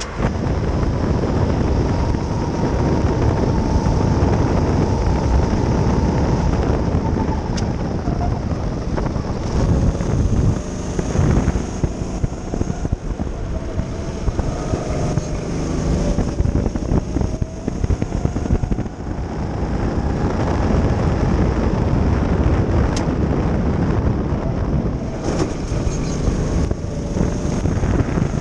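Go-kart engine running hard, heard from the driver's seat over heavy wind noise on the microphone, its pitch dipping and climbing again as the kart brakes and accelerates through the corners.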